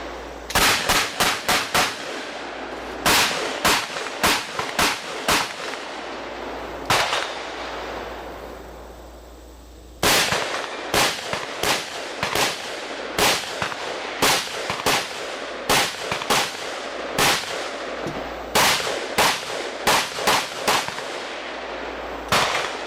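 AR-15 rifle firing 5.56 rounds in quick strings of sharp shots, at times several a second. The sound fades out briefly near the middle, then cuts back in to steady fire of about two shots a second.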